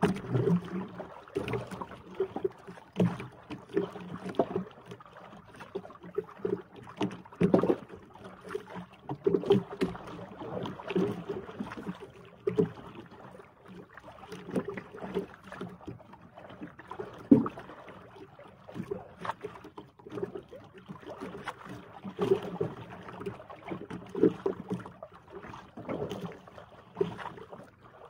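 Water slapping and knocking against the hull of a small outrigger boat on a choppy sea: irregular hollow thumps, a few louder knocks among them.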